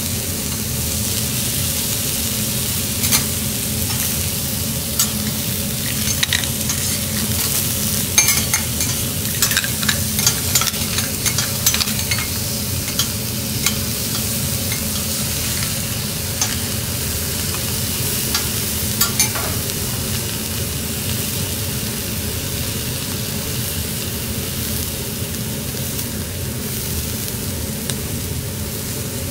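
Scallops and abalone sizzling steadily on a hot teppanyaki steel griddle. Scattered sharp metal clicks and scrapes of a spatula, knife and fork against the iron plate come through the first two-thirds, then the sizzle runs on alone.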